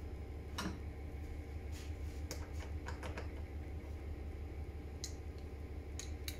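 Scattered light clicks and taps of a screwdriver and small sprayer parts being handled on a wooden workbench, with a cluster of quick clicks a few seconds in, over a steady low hum.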